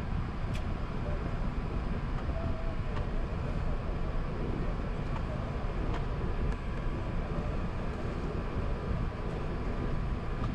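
Steady low rumble inside the cabin of an Airbus A380 rolling on the ground after landing: engines at idle and wheels on the taxiway, with a few faint clicks.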